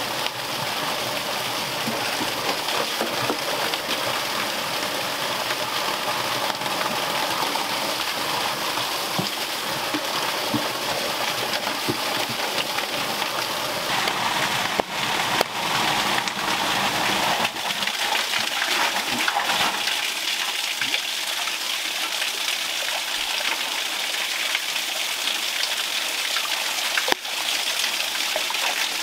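Pond water gushing steadily through a narrow outlet into a brick drain channel. A few sharp knocks of a knife chopping a wooden board come about halfway through, and one more knock near the end.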